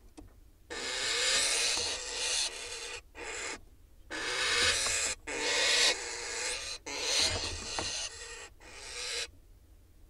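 Barn owl in its nest box giving a run of long, harsh rasping hisses, each half a second to two seconds, with short gaps between them. It is the owl's defensive call against mynas mobbing the box.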